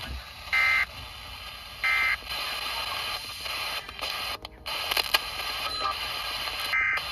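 Emergency Alert System end-of-message data tones received over radio: two short, buzzy bursts about a second apart, followed by radio static with a few clicks. Another short burst of tones begins near the end.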